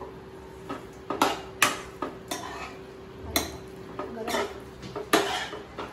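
Metal spoon stirring pasta in a kadai, striking and scraping against the pan in a run of irregular clinks. The milk just added is being stirred in to loosen the thickened white sauce.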